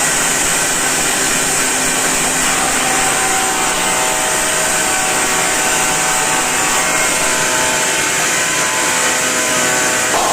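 An electric power tool running steadily, a continuous motor whine with a high hiss and no breaks.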